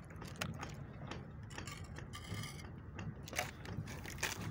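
Faint, irregular clicks and scrapes of a steel trowel working wet grout in a metal mixing pan.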